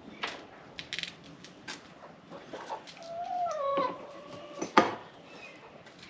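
Metal parts of a tripod deer feeder being handled and fitted together: a series of sharp clicks and knocks, the loudest near the end. In the middle, a domestic animal gives one drawn-out call that dips slightly in pitch.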